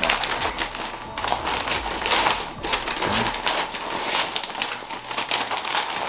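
Butcher paper crinkling and rustling as it is folded and pressed around a brisket: a dense, uneven crackle that swells and eases as the hands work the paper.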